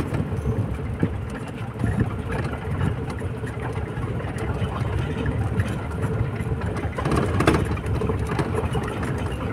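Open safari jeep driving along a dirt forest track: steady engine and road rumble, with a brief swell about three quarters of the way through.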